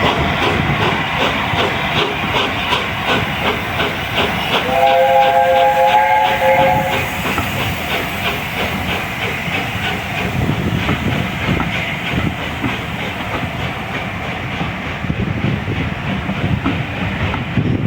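A passing train with a fast, rhythmic clatter. About five seconds in, its locomotive sounds a three-note chord for roughly two seconds.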